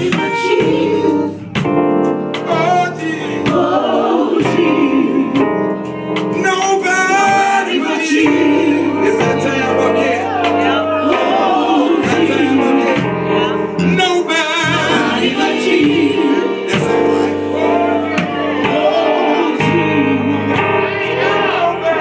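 Live gospel music: a male lead singer and a small group of backing singers over a band with bass and drums, with a steady beat.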